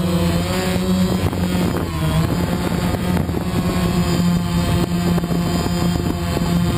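DJI Phantom quadcopter's motors and propellers humming steadily in a hover, heard up close from the GoPro mounted on it. The pitch wavers slightly about two seconds in as the motors adjust.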